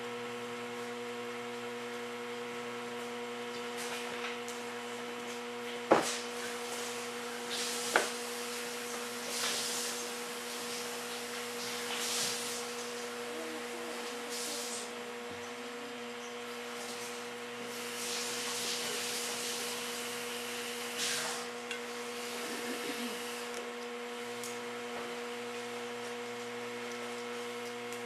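Clay on a large jar being worked by hand and tool, rubbing and scraping at intervals over a steady electric hum, with two sharp knocks about six and eight seconds in.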